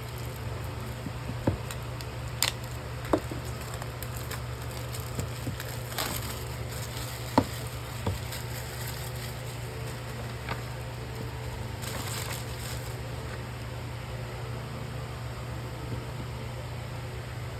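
Hands handling small plastic parts and packaging: scattered sharp clicks and taps, one louder knock about seven seconds in and a short rustle near twelve seconds, over a steady low hum.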